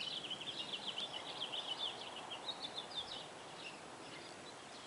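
Birds chirping in quick strings of short high notes, pausing briefly about halfway through and again near the end, over a faint steady outdoor hiss.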